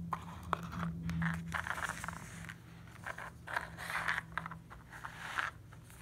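Hard plastic toy animal figures and a small teacup being handled and set down on a wooden floor: soft scrapes and light knocks as they are slid and placed.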